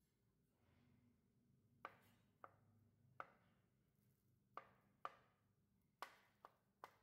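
Knife chopping hard-boiled eggs on a plastic cutting board: about eight faint, sharp taps of the blade at an uneven pace, starting about two seconds in.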